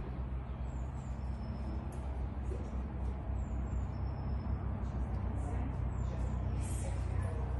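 Steady low mechanical hum, unchanging throughout, with a few faint short high chirps.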